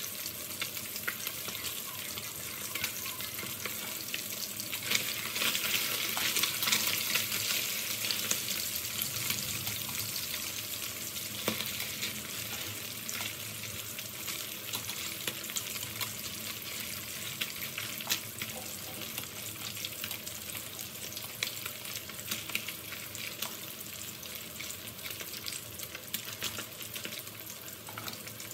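Pieces of fish frying in hot oil in a pan: a steady crackling sizzle with scattered sharp pops, loudest about five to ten seconds in.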